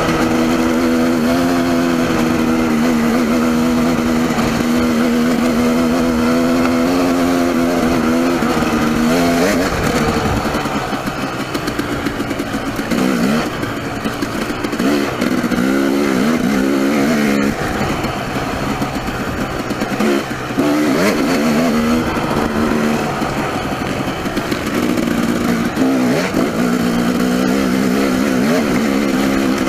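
Dirt bike engine running at a steady pitch. From about ten seconds in, the revs rise and fall again and again as the throttle is worked over rocky ground, then settle back to a steady pitch for the last several seconds.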